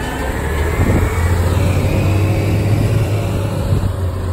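Front-loader garbage truck's diesel engine driving past and pulling away, a steady low drone with a fainter whine above it that shifts in pitch.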